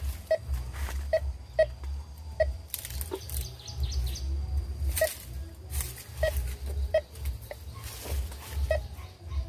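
Metal detector giving short beeps at irregular intervals over a buried target, over a low rumble and a few brief knocks.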